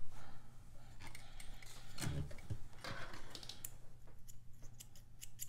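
Soft rustles and small clicks as sewn fabric is drawn out from under a sewing machine's presser foot and the threads are snipped with small scissors, over a steady low hum.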